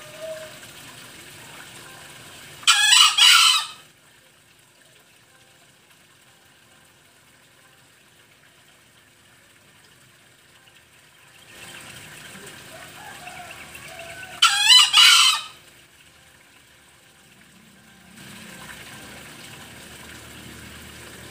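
Male green junglefowl crowing twice, about twelve seconds apart, each crow about a second long.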